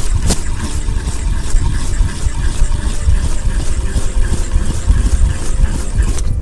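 Wind buffeting the microphone: a loud, steady low rumble with a rushing hiss above it. It cuts off abruptly at the end.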